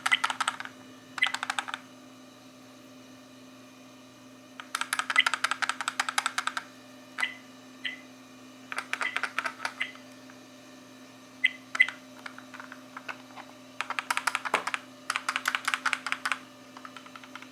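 A 1080p Novatek rear-view-mirror car DVR being shaken by hand, something loose inside rattling in several bursts of quick clicks, with a few single clicks and short pauses in between. The rattle is a defect: a loose part inside the unit as received.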